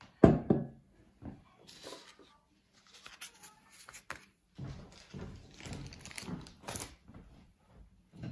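A glass bottle set down hard on a wooden table with a loud thunk, then rustling and light knocks as bundles of pipe cleaners, tobacco pipes and plastic-packaged cleaning tools are laid out on paper towel.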